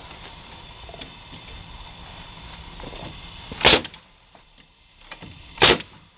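Pneumatic framing nailer firing twice, about two seconds apart, each shot a sharp bang as a nail is driven into sawmilled cedar framing.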